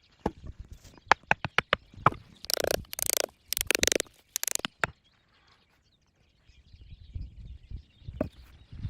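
Sticks and branches being handled for a shelter: a quick run of sharp cracks and clicks, several brief rustling scrapes, then soft low thumps near the end.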